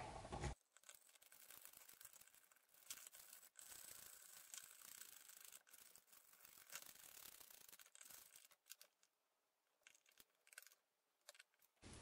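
Near silence with faint scratching and small clicks: a screwdriver turning the GFCI outlet's mounting screws down into the wall box.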